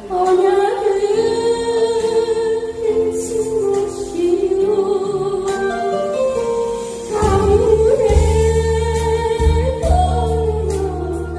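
A woman singing a Korean trot song into a microphone over instrumental accompaniment, holding long wavering notes; a heavier bass line comes in about seven seconds in.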